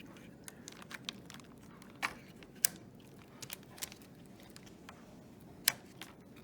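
Scattered small plastic clicks and taps as a RAM memory module is pressed into its motherboard slot and handled, with three sharper clicks standing out.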